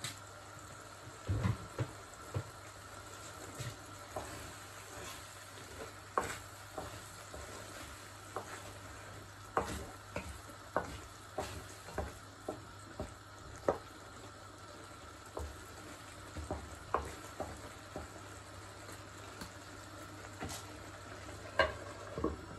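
Wooden spoon stirring rice in a non-stick frying pan, with irregular knocks and scrapes against the pan over a faint sizzle of the rice cooking in a little added water. Near the end a glass lid is set on the pan with a couple of clinks.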